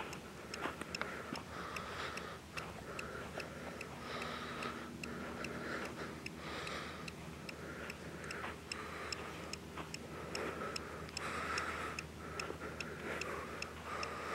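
Footsteps crunching on a sandy trail, with a faint, even ticking about twice a second.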